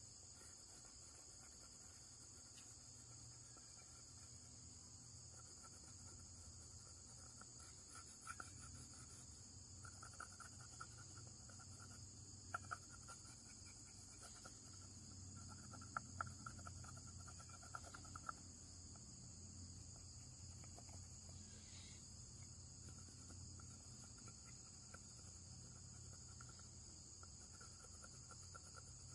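Crickets chirring steadily, a faint high continuous trill, with a few light clicks around the middle.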